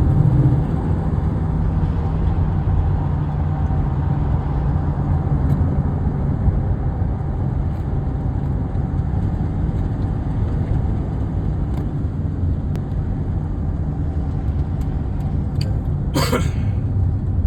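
Steady low road and engine rumble of a car driving, with one short, sharp sound near the end.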